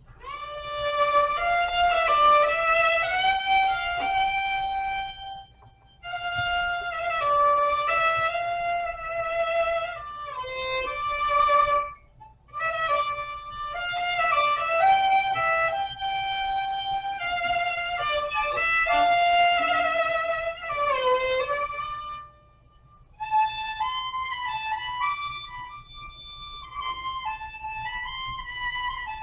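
Solo violin playing a slow melody of held notes in phrases, with brief pauses between them.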